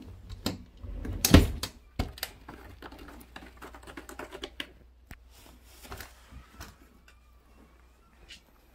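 A cat clawing a corrugated-cardboard scratcher, a rapid run of rasping, clicking scratches, done in excitement as a greeting. One loud thump about a second and a half in.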